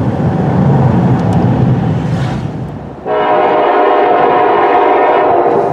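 Freight cars rumbling across a steel girder bridge overhead. Then, about 3 s in, a loud, steady blast from an approaching freight locomotive's air horn, held for nearly three seconds and cut off at the end.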